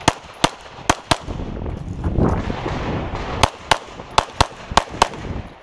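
Rapid pistol fire from a SIG P320-pattern pistol with a Lockwood slide kit: four shots in about a second, a pause of about two seconds with rustling movement noise, then six more quick shots, in pairs. This is a competitor shooting a USPSA course of fire.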